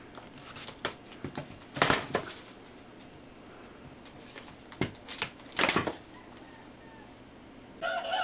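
Several sharp thumps and scuffles as a rooster strikes and kicks at a plush toy chicken, then near the end the rooster starts a long, loud crow.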